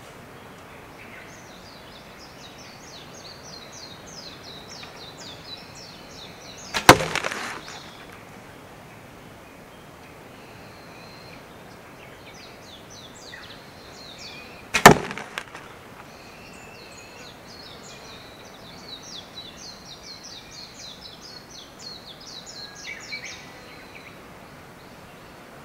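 Two arrows shot from a wooden longbow thud into a corrugated cardboard target, about eight seconds apart, each a sharp hit with a brief rattle after it.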